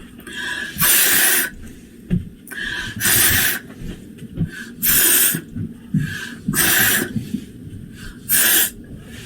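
A woman's voice making the sound of the letter F, a long breathy "fff" hiss, five times about two seconds apart.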